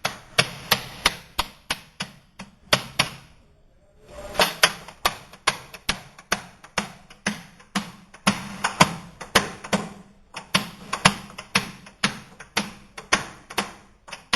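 Cooper's hammer blows driving hoops down on a wooden barrel to tighten the staves: a steady run of sharp strikes, about three a second, with a pause of about a second near the start.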